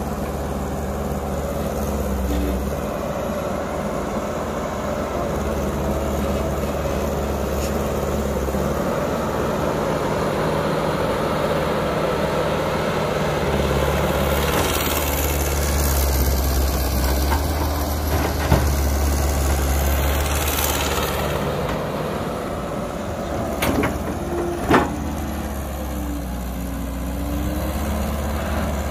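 Caterpillar tracked excavator's diesel engine running under working load as it digs and swings, growing louder for a stretch in the middle. A few sharp knocks come in the second half.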